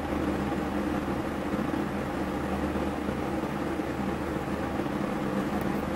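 Steady low mechanical hum with an even hiss: the constant background noise of a room, from something like a running fan.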